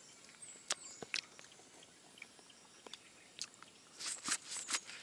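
Boiled corn on the cob being bitten and chewed: scattered wet smacks and clicks of teeth on kernels, with a quick cluster of louder bites about four seconds in.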